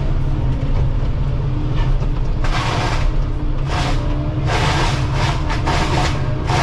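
Excavator engine and hydraulics running with a steady low drone, while a Shearex VM-40 drum mulcher head shreds brush and vine maple in a series of short grinding bursts starting about two and a half seconds in.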